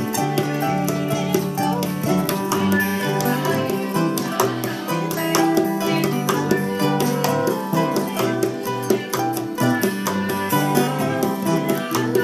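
Acoustic string-band music with quick plucked-string picking in a bluegrass style, an instrumental passage without singing.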